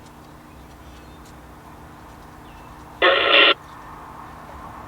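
A short, loud burst of sound from a CB radio's speaker about three seconds in, lasting about half a second: a reply coming in on channel 19 to a radio check, which shows the newly installed CB and antenna transmit and receive. Before it, only a faint steady hum.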